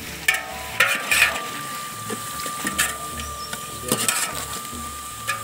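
Slotted metal ladle scraping and knocking against the inside of a large aluminium cooking pot as raw chicken is stirred into frying onions, in about half a dozen short clatters. Background music with a held tone and a steady beat runs underneath.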